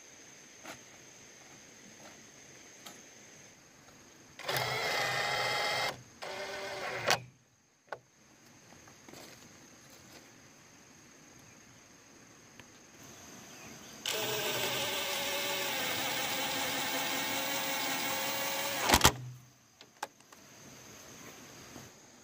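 Small electric motor of a handheld power tool running in three bursts: two short ones about four and six seconds in, then a longer run of about five seconds that stops abruptly. Between the runs there are a few faint clicks and knocks.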